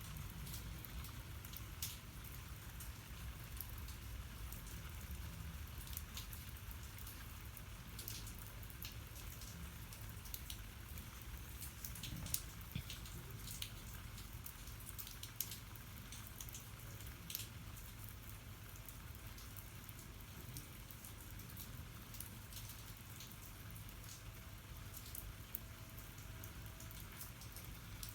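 Steady rain falling, with scattered single drops ticking sharply on a nearby surface over a low rumble.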